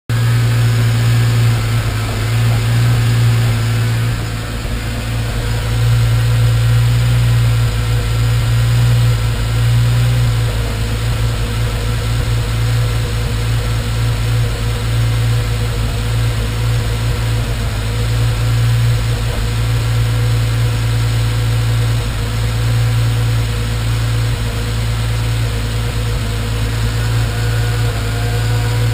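Nissan GT-R's VR38DETT twin-turbo V6 idling steadily, with small irregular dips in its running that the owner takes for random misfires.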